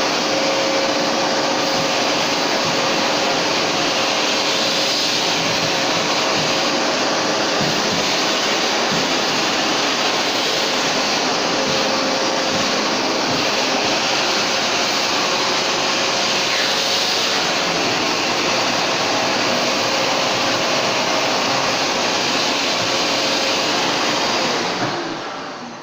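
Vacuum cleaner running steadily while sucking drilling dust out of holes drilled through plywood flooring, with a faint steady motor whine; it winds down near the end as it is switched off.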